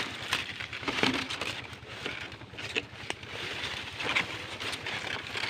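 Dry palm fronds rustling and crackling close by, with irregular sharp clicks scattered through.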